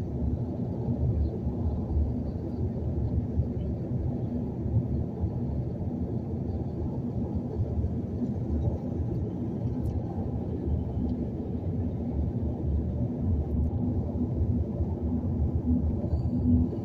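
Steady low rumble of tyres and engine heard inside a car's cabin cruising at highway speed.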